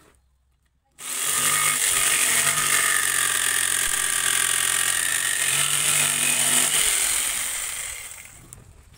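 Electric jigsaw starting about a second in and cutting through a wooden plank with a steady buzz of motor and reciprocating blade, then dying away as it stops near the end.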